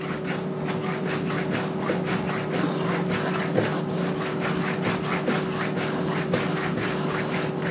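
Hands rolling and stretching a piece of yeasted bread dough back and forth on a worktop: a rhythmic dry rubbing, about four strokes a second, over a steady low hum.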